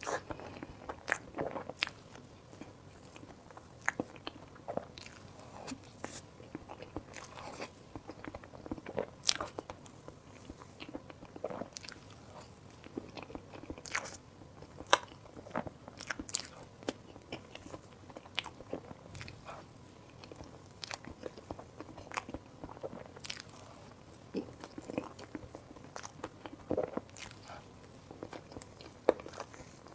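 Close-miked eating sounds: a person biting into and chewing food, with many sharp mouth clicks at irregular intervals.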